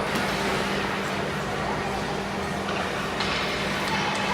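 Ice hockey rink ambience: a steady wash of noise with spectators' background chatter and a constant low hum.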